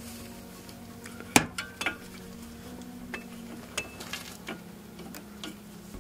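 Steel wrench clinking against a suspension bolt and bracket as it is fitted onto the nut: one sharp clink about a second and a half in, then a few lighter ticks. Faint background music underneath.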